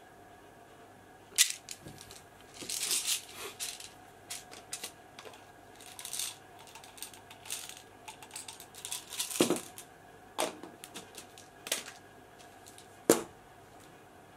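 Plastic bottle of supplement tablets being handled and opened: the cap clicks, and the tablets rattle and are shaken out. The sound comes as scattered sharp clicks and short rattles, the loudest about a second and a half in and near the end.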